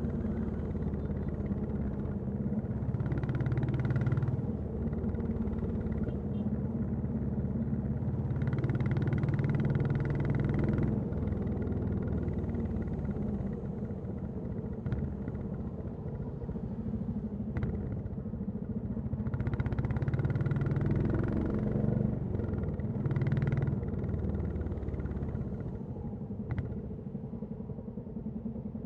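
Royal Enfield Classic 350's single-cylinder engine and exhaust running on the move, the note swelling under throttle several times and easing off in between.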